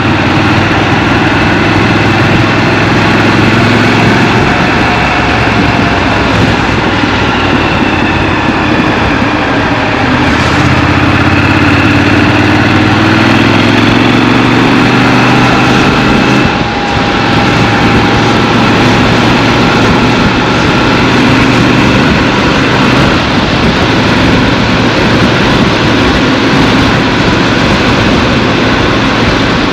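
Scrambler motorcycle's engine running while riding through city streets, its pitch rising and falling as the bike speeds up and slows down. There is a short dip in loudness about seventeen seconds in.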